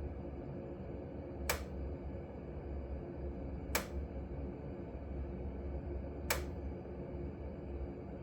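Glow-worm Energy7 30c combi boiler giving sharp single clicks, three of them about two and a half seconds apart, over a steady low hum. The clicking comes while the water is between about 40 and 55 degrees.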